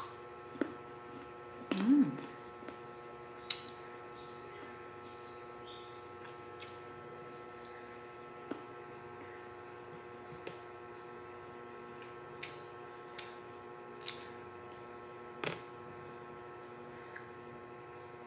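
A firm guava being bitten, chewed and pulled apart by hand: about ten sharp crunches and clicks spread out over a steady electrical hum. A short vocal 'mm'-like sound about two seconds in is the loudest moment.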